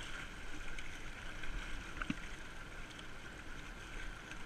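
Fast, high river water (about 55 cubic metres a second) rushing and lapping around a kayak's bow, with the paddle blade splashing into the water and a short sharp tick about two seconds in.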